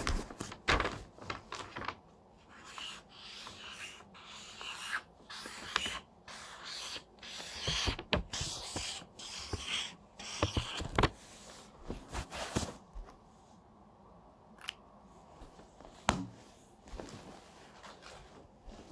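Close, irregular handling noise: scattered knocks and clicks with scraping and rustling between them, thinning out over the last few seconds.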